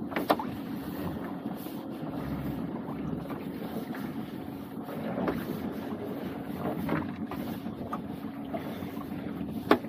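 A small boat's engine idling steadily, with wind buffeting the microphone. Two sharp knocks stand out, one just after the start and one near the end, with a few fainter knocks in between.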